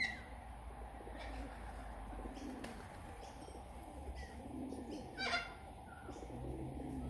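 Corellas calling from a flock: a few soft low calls every second or so, with a short call at the start and one sharp squawk about five seconds in.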